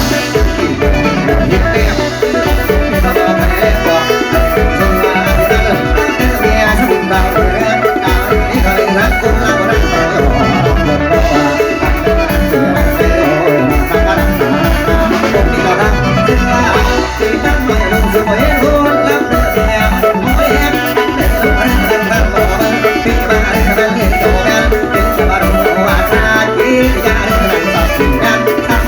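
Instrumental Isan mor lam band music with a bright melody over a steady, fast drum beat.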